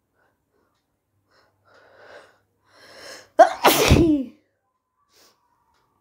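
A person's loud sneeze about three and a half seconds in, preceded by two quieter breaths as it builds.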